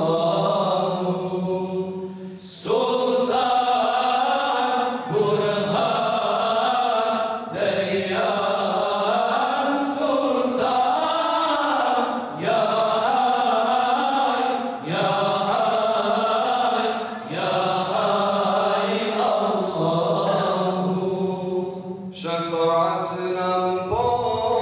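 A group of male imams chanting a mevlud in unison, unaccompanied, in melismatic phrases that break for a breath about every two and a half seconds. Near the end a single voice carries on alone.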